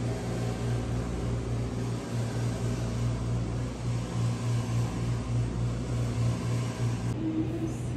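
Steady low machine hum under a broad even hiss, with a slightly pulsing low drone.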